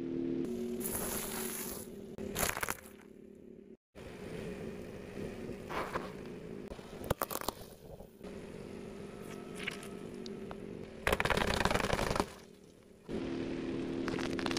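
A car tyre rolling over and crushing plastic and metal objects: a string of crunches, cracks and crackles, with a loud, noisy burst about two-thirds through. A steady low hum comes in near the end.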